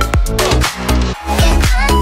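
Background electronic dance music with a steady beat, dropping out briefly just past a second in.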